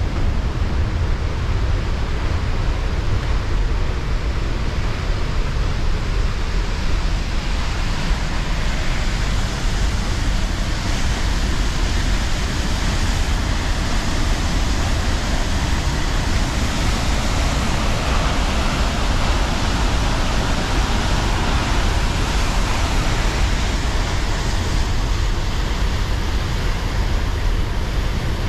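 Steady rushing of a waterfall close by, a continuous loud white-water noise with a deep low rumble, a little brighter through the middle.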